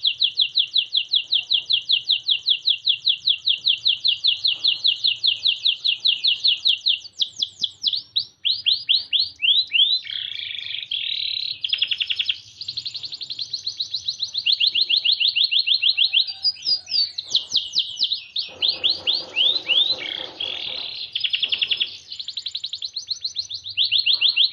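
A canary singing a long song made of rapid trills of fast repeated high notes. The trills change pattern several times, and there is a lower, warbling passage about three-quarters of the way through.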